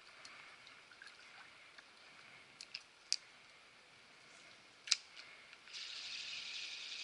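Faint flowing creek water with a few sharp clicks in the middle; a louder, steady hiss of water comes in near the end.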